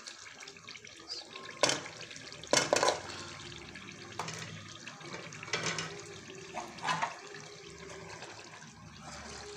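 A metal spoon stirring watery minced-meat gravy in a cooking pot: liquid sloshing, with a few clinks and scrapes of the spoon against the pot.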